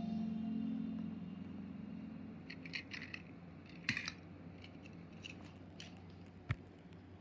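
The tail of background music fades out in the first second or two. After that come a few scattered light clicks and taps, and a single sharp knock about six and a half seconds in.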